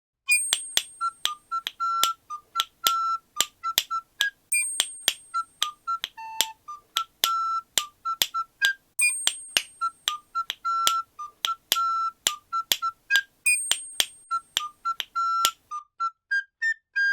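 Short, high pipe notes (笛) played in a quick rhythm, mostly on one repeated pitch, over sharp castanet and hand-clap clicks. Near the end the notes step upward.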